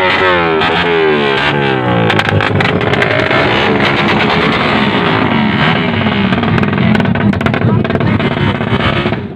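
A motorcycle engine revving, its pitch climbing and falling over and over, clearest in the first couple of seconds.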